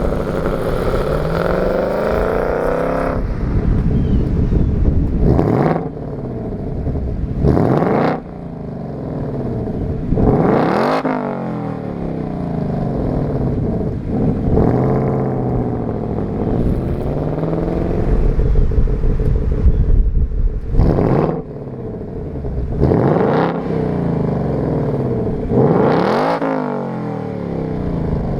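2024 Ford Mustang GT's 5.0 Coyote V8 revved repeatedly through its factory active exhaust. Each quick blip of the throttle rises sharply and falls back to a burbling idle. This is the stock exhaust note before the resonator is removed.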